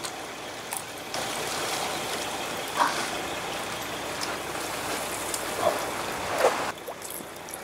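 A baitcasting reel being cranked fast to bring up the line after a bite: a steady rushing whir that starts about a second in and stops abruptly near the end, with a few light knocks.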